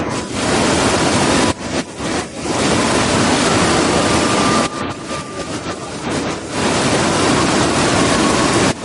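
Waterfall: a loud, steady rush of falling water that dips briefly a few times.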